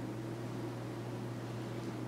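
Steady low hum with an even hiss underneath: room tone from a running machine such as a fan.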